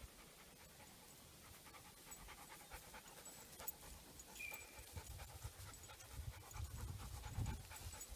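A dog panting faintly, breathy strokes in quick succession.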